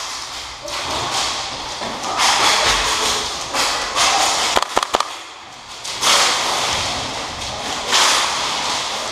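Rustling and thuds of movement close to the camera, coming in four washes of about a second each, with a few sharp clicks about halfway through.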